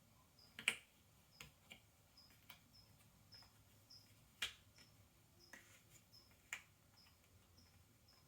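Cardboard jigsaw puzzle pieces being handled and set down on a tabletop: scattered light clicks and taps, the sharpest about a second in and another near the middle. A faint high chirp repeats underneath every half second or so.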